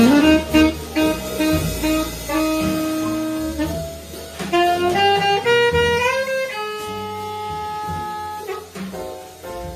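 Alto saxophone playing a slow jazz ballad live with a rhythm section underneath: a few short repeated notes, then a run climbing step by step to a long held higher note.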